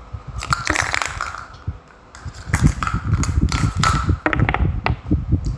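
Irregular clicks, knocks and rustling, with low thuds scattered through.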